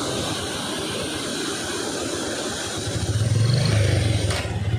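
Steady roar of water pouring through the open spillway gates of a dam. A low rumble swells louder about three seconds in.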